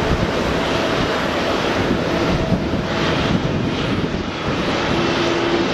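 United Airlines Boeing 787 taxiing, its jet engines running at low taxi power: a steady rush of engine noise with a faint whine, and a slightly higher tone coming in near the end.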